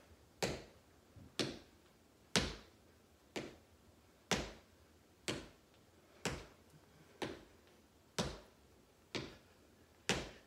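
Sneakered feet landing on a hardwood floor in a high-knee march: a sharp thud about once a second, evenly paced.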